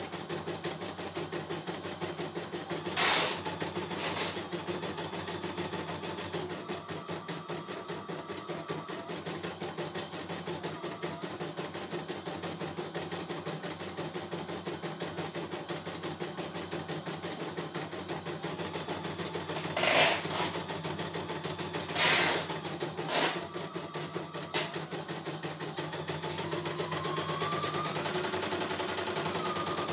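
CNY E900 computerised embroidery machine stitching a design, its needle running in a fast, even rhythm. A few sharp, louder knocks stand out over the stitching, and a whine rises in pitch near the end.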